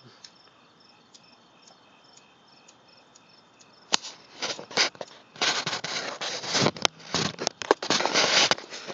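Crickets chirping faintly in a steady, evenly repeating pattern, then from about four seconds in a run of loud, irregular noise bursts close to the microphone.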